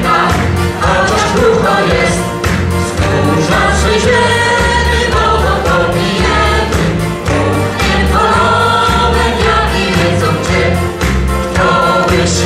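Choir singing a song together, accompanied by an accordion with a steady, regular bass.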